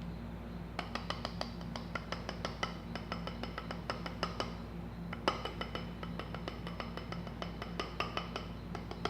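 Rapid light clinks and taps of a utensil or container, in two runs of about three and a half seconds each with a short break between, as shaving foam is put into the slime mixture.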